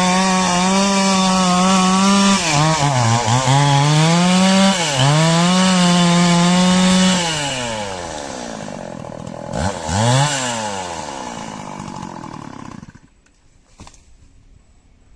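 Stihl chainsaw cutting a coconut palm log at full throttle, its engine speed dipping twice as the chain bogs in the wood. About seven seconds in the throttle is released and the saw winds down, revs briefly once more, then the sound drops away sharply near the end.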